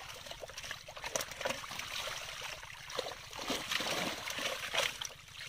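Water splashing and sloshing in irregular bursts as a netful of large silver fish thrash in shallow water.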